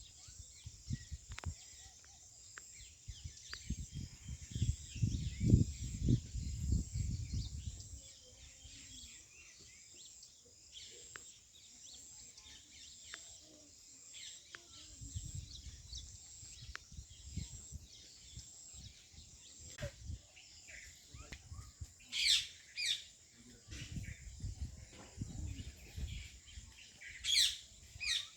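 Several birds chirping: many short, high chirps overlap throughout, with two loud bursts of calls near the end. A low rumble comes and goes underneath.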